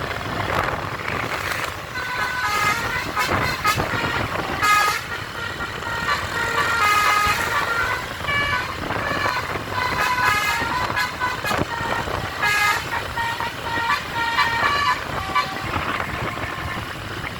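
Basuri telolet bus horn playing a tune of short notes that step up and down in pitch, repeated in runs with brief gaps, over a low rumble.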